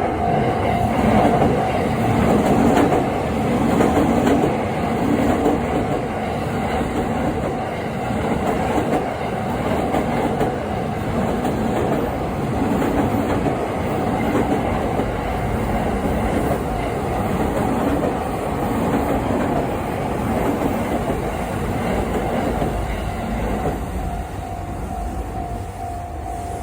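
E231-1000 series 15-car electric train running past over a level crossing, its wheels clattering over the rail joints in a steady rhythm. A level-crossing warning tone rings, heard plainly at the start and again near the end as the train clears.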